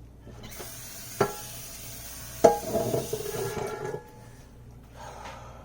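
A frying pan being rinsed under a running tap, knocking twice against the sink; the second knock rings out like metal.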